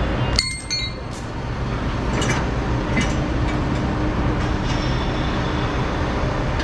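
Steady low mechanical rumble, with a short run of metallic clinks about half a second in.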